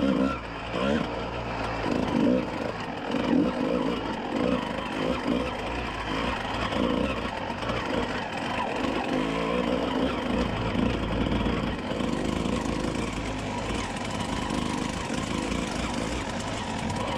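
Kawasaki KX125 dirt bike's 125 cc single-cylinder two-stroke engine riding slowly over rock, the throttle repeatedly blipped so the revs rise and fall. After about twelve seconds it settles into steadier running.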